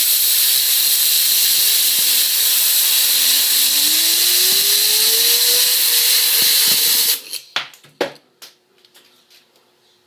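Compressed air hissing hard from an air compressor's blow nozzle onto a fidget spinner, with the spinner's whine rising steadily in pitch as it spins up. The air cuts off suddenly about seven seconds in, followed by a few sharp clicks and knocks.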